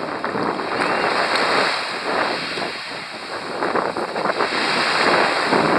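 Small waves washing up on a beach and drawing back, the surf noise swelling and easing every couple of seconds, with wind buffeting the microphone.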